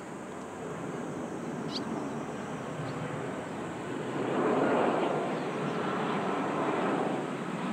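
Jet airliner engines heard at a distance: a rushing roar that builds and swells loudest about halfway through.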